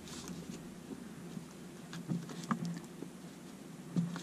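Faint rustling and a few scattered small clicks of fingers peeling heat-shrink tubing off a drone's ESC board and handling its thin wires, with the sharpest ticks near the end.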